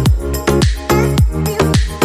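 Electronic dance music with a steady kick-drum beat and synth notes.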